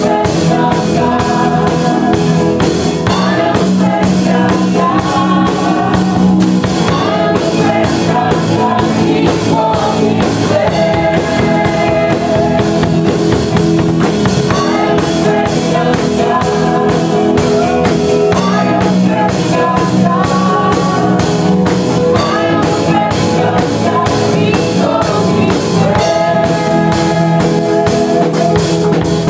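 Worship band playing a song with a drum kit keeping a steady beat and voices singing over it.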